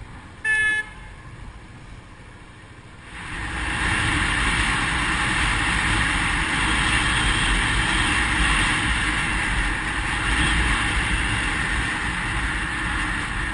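A short, loud beep about half a second in. From about three seconds, strong wind rush and road noise on a helmet-mounted camera as the motorcycle gets under way and rides along at speed.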